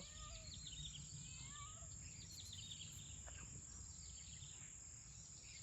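Faint outdoor ambience: a steady high-pitched insect trill, with scattered short falling bird chirps.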